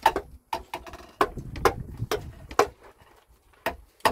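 Hammer blows nailing a wooden pole in place: sharp single strikes roughly every half second, with a pause of about a second near the end.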